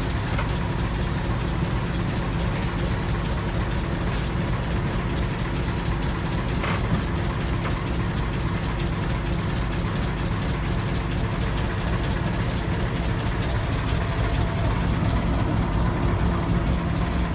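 A heavy engine running steadily at idle, with two brief clicks, one about seven seconds in and one near fifteen seconds.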